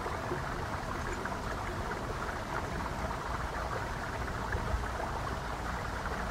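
Steady nature-sound background track: an even, unbroken hiss with no distinct events.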